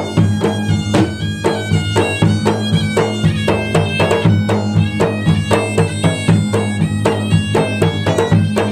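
Bugis-Makassar gendang drum music: hand-beaten barrel drums keeping a fast, even rhythm of about three to four strokes a second, a large hanging bossed gong struck with a padded beater ringing beneath, and a wind instrument playing a melody over them.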